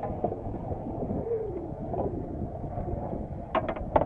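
Wind rumbling on the microphone over open-air boat ambience aboard a moored sailboat, with a few sharp clicks near the end.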